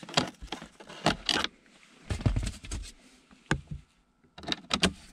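Hand screwdriver driving a screw that fastens a plastic cup holder into a BMW E39's centre console: irregular scrapes and clicks of metal on the screw and plastic, with a sharp tick about three and a half seconds in.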